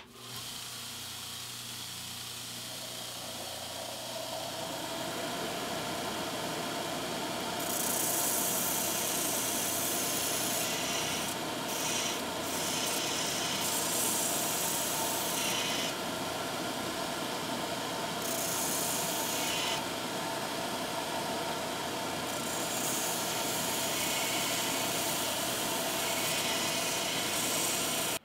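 Belt grinder starting up and running with a steady motor hum. From about eight seconds in, a steel workpiece is pressed against the abrasive belt in repeated passes, each pass giving a harsh grinding hiss that throws sparks.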